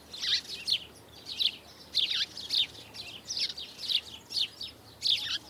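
A small bird chirping repeatedly: short, high chirps sweeping downward, in quick clusters of two or three about every half second.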